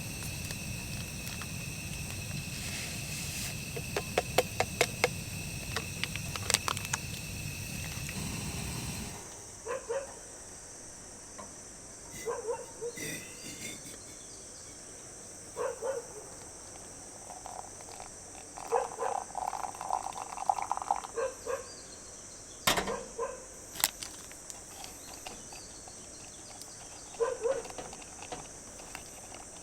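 Night insects chirring steadily in a high, even chorus, with short lower calls from another animal every couple of seconds. For about the first nine seconds a steady rushing noise with sharp clicks covers it, then drops away.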